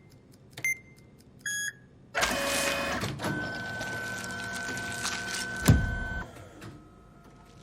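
Vending machine in use: a couple of short keypad beeps, then about two seconds in its motor whirs for around four seconds, with a loud thud near the end as the item drops.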